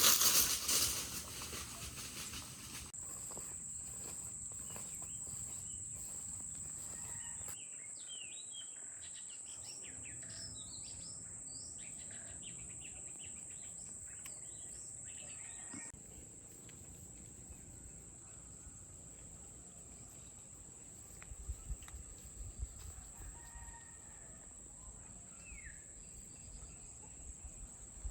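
Rural outdoor ambience: a steady, high-pitched insect drone throughout, with scattered bird chirps through the middle. A brief burst of noise sounds at the very start.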